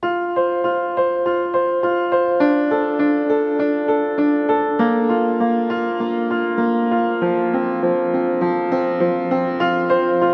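Background music: a gentle piano or electric-piano piece with notes repeated at a steady pulse of about two a second and chords changing every couple of seconds.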